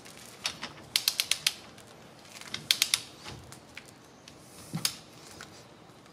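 Torque wrench's ratchet head clicking in two quick runs of about half a dozen clicks each, then a single click later, as wheel spacer nuts are torqued down one after another.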